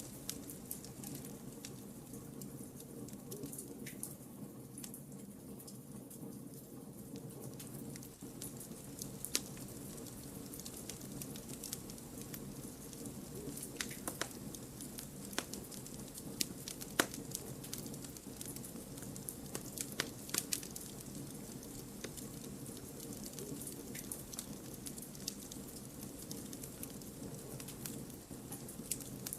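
Campfire of burning wood logs crackling, with scattered sharp pops, a few louder ones through the middle, over a steady low rush of the flames.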